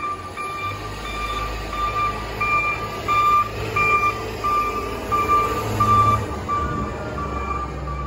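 Wheel loader's backup alarm beeping steadily, a little under two beeps a second, over the low rumble of its diesel engine, which swells a few times: the machine is reversing.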